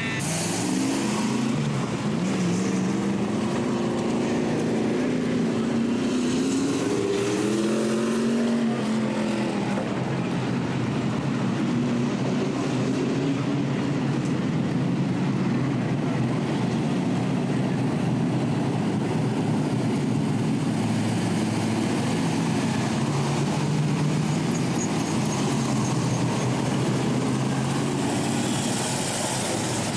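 Engines of a pack of figure-eight stock cars running hard around the track, their pitch rising and falling as they accelerate and lift.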